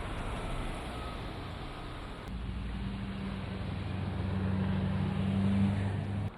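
Road traffic: the hiss of passing vehicles, then about two seconds in a vehicle's engine hum that grows louder and stops abruptly near the end.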